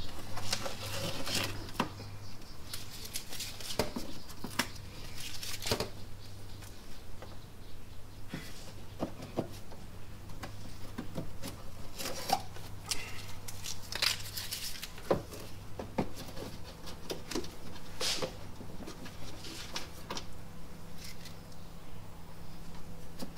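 Scattered clicks, taps and light rattles of parts and hand tools being worked in an engine bay, over a faint steady low hum.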